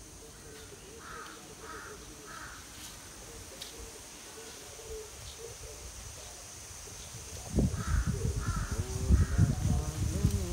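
A crow cawing, three short caws in a row, then another three a few seconds later. Near the end a louder low rumbling noise comes in under the second set of caws.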